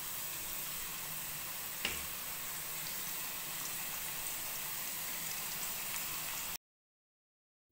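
Thin potato slices deep-frying in hot oil: a steady sizzle with fine crackling, and one light click about two seconds in. The sound cuts off abruptly about six and a half seconds in.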